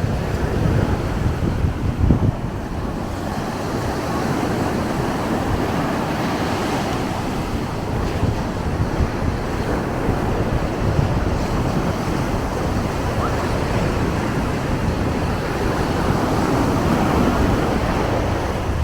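Ocean surf washing steadily onto the beach, swelling and easing, with wind rumbling on the microphone.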